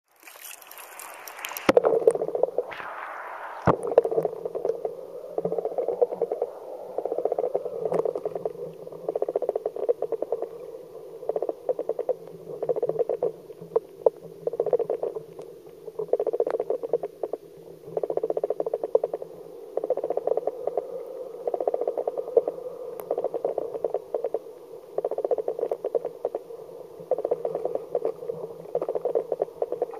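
Underwater audio from a camera submerged in a trout river: a muffled rush of current with clusters of crackling clicks every second or two. It opens with a brief hiss before settling into the muffled underwater sound.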